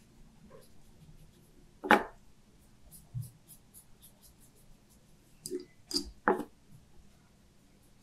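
Faint scratching of a paintbrush laying gouache onto paper, with one sharp knock about two seconds in and three more quick knocks or clicks close together around six seconds in.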